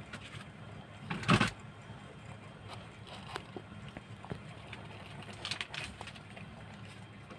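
Steady low background hum, with one brief loud rustle or knock a little over a second in and faint scattered clicks.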